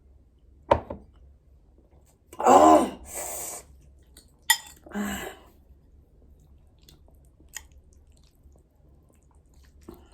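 A woman eating very hot spicy noodles: mouth smacks and clicks, a short pained vocal cry about two and a half seconds in followed by a hissing breath out, then another short breathy cry about five seconds in, her reactions to the burning heat.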